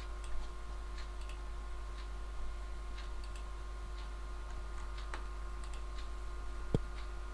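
Clock ticking steadily about once a second over a constant low hum, with a single sharp thump near the end.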